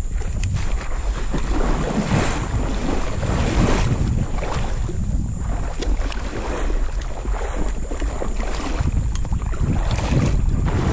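Water sloshing and swishing in rhythm with a hunter's strides as he wades through shallow marsh water, with wind buffeting the microphone.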